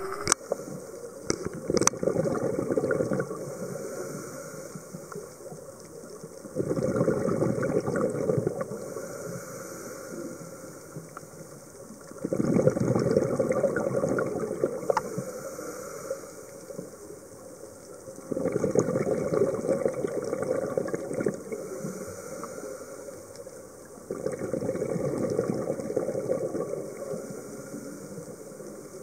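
Scuba diver's exhaled bubbles rumbling out of the regulator, recorded underwater: five bursts of two to three seconds each, about every six seconds in time with the diver's breathing, with quieter water noise between.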